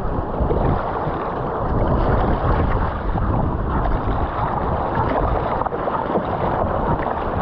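Wind buffeting the microphone over steady rushing and splashing of choppy water along the hull of an Epic V7 surfski under way.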